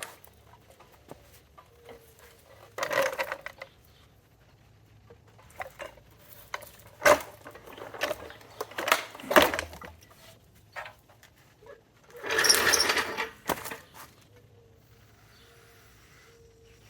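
Irregular metal clanks, knocks and clicks of tools and parts being handled during the disassembly of a truck. A louder scraping, rattling stretch of about a second and a half comes near the end.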